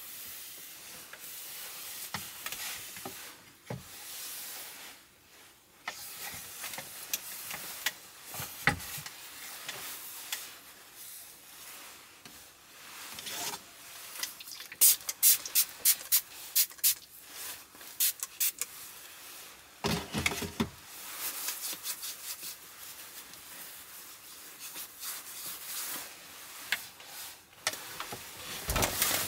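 A cloth rubbing across a wooden tabletop with a soft swishing hiss. Around fifteen seconds in comes a quick run of sharp spritzes from a plastic spray bottle, then a dull bump, then more wiping.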